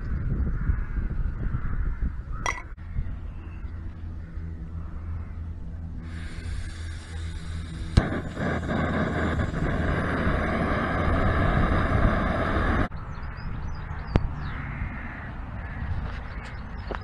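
Coleman gas cartridge camping stove: gas hissing, then a sharp click a couple of seconds later as it is lit, and the burner running with a steady rushing hiss for several seconds before it cuts off suddenly.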